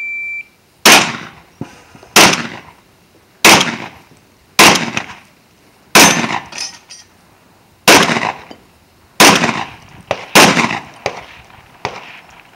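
A shot timer's short beep, then a semi-automatic shotgun fired about eight times at steel targets, one shot every second or two, with fainter knocks between some of the shots.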